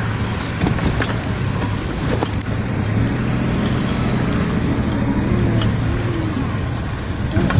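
A vehicle engine running steadily with a low hum and an even rushing noise over it.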